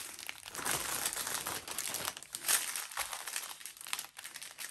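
Plastic bags of diamond painting drills crinkling as they are handled and squeezed together to go into a larger plastic bag, with the loudest crinkle about two and a half seconds in.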